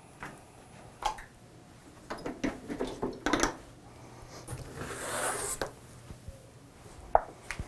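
Scattered footsteps and light handling knocks, then a large paper sheet rustling as it is lifted and pulled free, about five seconds in, and one sharp click near the end.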